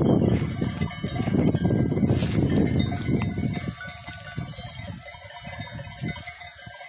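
Several small livestock bells ringing on and off at different pitches, over a low rushing noise that is loud at first and fades away about halfway through.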